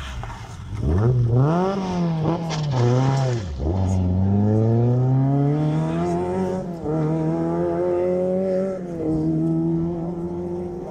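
Rally car engine accelerating hard away through a junction on a special stage: revs climb with quick upshifts in the first few seconds, drop sharply about three and a half seconds in, then rise in a long pull with another shift near the end as the car draws away.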